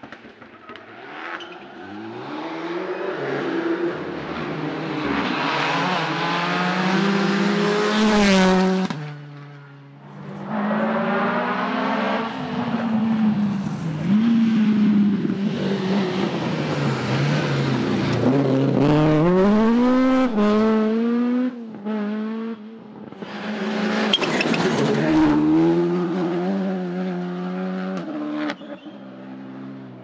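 Rally cars at full speed one after another in three passes, engines revving hard through the gears with the pitch climbing and dropping at each shift. The middle pass is a Ford Escort Mk2 historic rally car. A short burst of crackling comes late in the first pass and again in the last.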